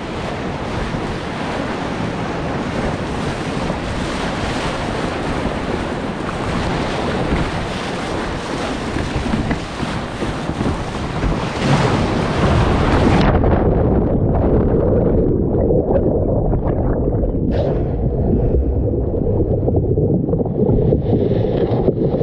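Breaking surf and whitewater rushing over a capsizing kayak, with wind buffeting the microphone. A little past halfway the sound suddenly goes dull and muffled as the camera is dragged underwater into the churning wave.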